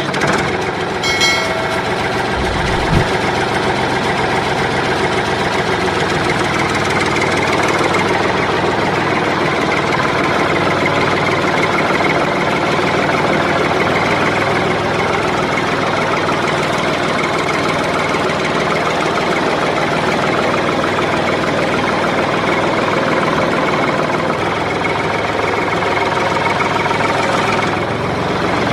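Mini tractor's engine running steadily with a knocking clatter.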